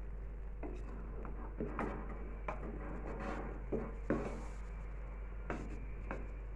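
Wooden spatula scraping and knocking against an aluminium pot while turning over thick, half-cooked biryani rice, in irregular strokes about every half second to a second.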